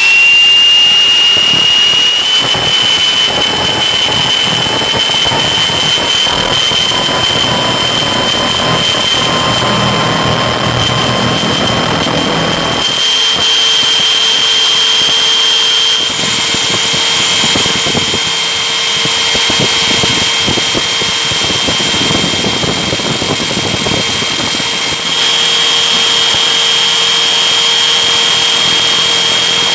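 Bosch GBH hammer drill spinning up to full speed, then running steadily with a high whine as a twist bit bores into a steel bicycle frame. The tone shifts abruptly a few times. The bit is worn, which makes the hole slow to cut.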